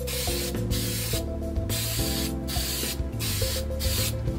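Aerosol can of spray adhesive hissing in about five short bursts, each under a second, with brief pauses between them.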